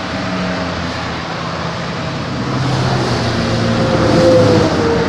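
Steady road and engine noise heard from the back of a moving lorry on a highway, growing louder from about two and a half seconds in to a peak near the end before easing.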